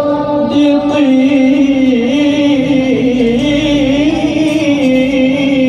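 A male qari reciting the Quran in melodic mujawwad style. He holds one long, ornamented phrase, his voice wavering up and down in pitch without a break.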